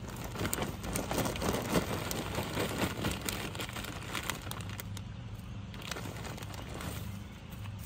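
Plastic bag of garden soil crinkling as soil is poured out of it around a plant, a dense crackle that is loudest in the first few seconds, then softer rustling as the soil is pressed down by hand.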